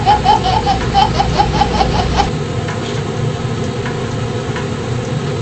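A woman laughs in quick repeated bursts for about two seconds, over the steady sizzle of chicken wings frying in butter in a covered pot; after the laughter stops, only the sizzle with faint crackles remains.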